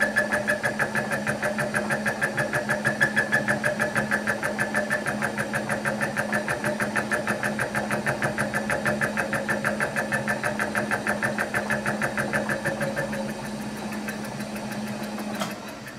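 Milling machine spindle turning a boring head whose cutter is taking a cut into the edge of a metal part, hand-fed down with the quill lever: a steady machine hum with a rapid, regular beat of the cutter striking the metal. Near the end the sound stops and fades away.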